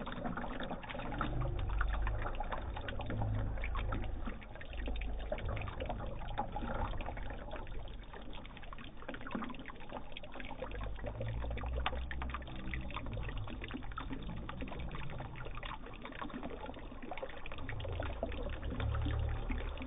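Water pouring and trickling steadily into a small homemade flood model, staging a slowly rising river flood, with patches of low rumble underneath.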